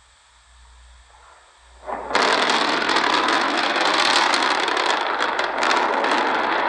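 Starship SN9 crashing onto its landing pad and exploding: a faint hiss, then about two seconds in a sudden loud blast that carries on as a steady, noisy roar of the fireball. It comes from a landing burn in which one Raptor engine failed to relight.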